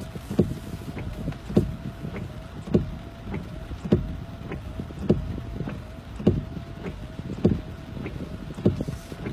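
Car windscreen wipers sweeping back and forth, with a thump about every 1.2 seconds and the faint whine of the wiper motor. Under them runs the low rumble of the moving car.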